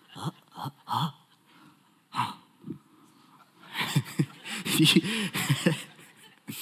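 A man's wordless vocal sounds: a few short hums and gasps, then a quick run of breathy vocal noises in the second half, miming someone peering closely at an object.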